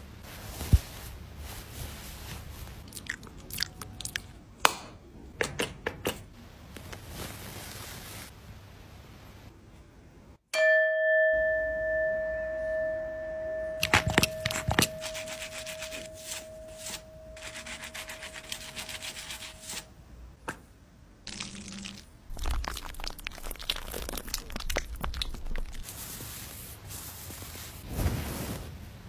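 Close-up handling sounds: many crisp crunches, clicks and taps from foam pump bottles being pressed and paper face sheets being patted on the puppies. About ten seconds in, a single chime starts suddenly and fades over several seconds.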